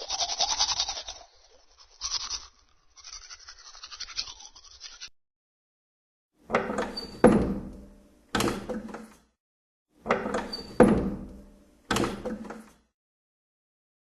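A brush scrubbing in quick strokes, stopping about five seconds in. Then a short run of sharp knocks and thunks with a ringing tail, played twice the same way.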